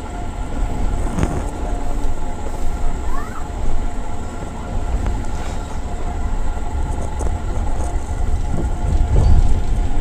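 Pakistan Railways passenger train running along a station platform, heard from an open coach window: a steady rumble of the coaches on the track.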